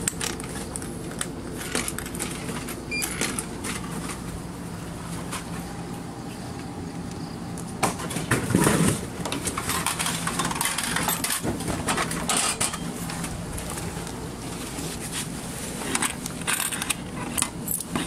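Coins clicking into a drink vending machine's coin slot, then about eight seconds in a louder clatter and thud as a bottle drops into the outlet tray, with more clicks near the end. A steady low hum runs underneath.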